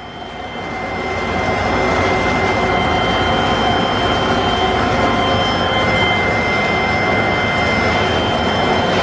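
Regenerative blower switched on: its rush builds over the first two seconds, then it runs steadily, with a few high, steady whining tones over the noise.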